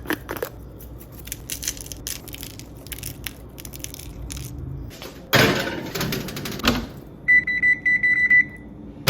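Kitchen appliance beeping: a quick run of short high-pitched beeps lasting about a second, near the end. Before it come small clicks and handling sounds and a brief louder rustle.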